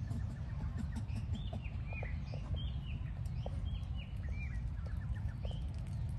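Short high-pitched animal chirps, a dozen or so in quick irregular succession, over a steady low rumble.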